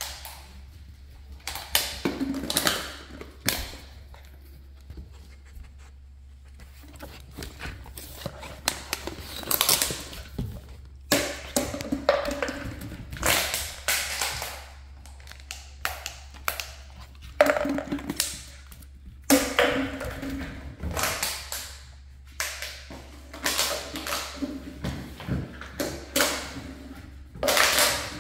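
Empty plastic water bottle being batted, bitten and knocked across a hardwood floor by a pit bull puppy: irregular hollow taps, thunks and crinkles, coming in flurries with short lulls between.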